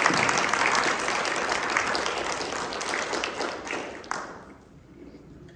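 Audience applauding, many hands clapping at once, then thinning out and dying away about four seconds in.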